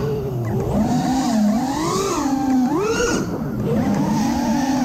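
5-inch FPV quadcopter's T-Motor F60 Pro IV 1950kv brushless motors and props buzzing, the pitch swooping up and down with the throttle, rising sharply about two and three seconds in. Wind rushes over the onboard camera's microphone.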